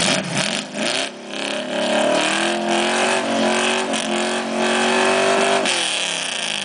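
Pickup truck engine revving hard under load, climbing in pitch about a second in, held high for roughly three seconds, then dropping off near the end. This is a truck straining on a tow strap to pull a stuck pickup out of deep mud.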